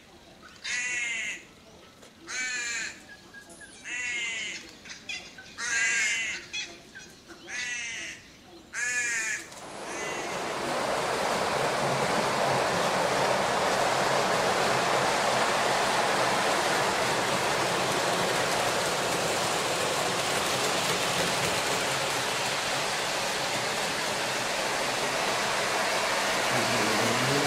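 A crow calling, a series of harsh caws about a second and a half apart. About ten seconds in, a steady even hiss takes over.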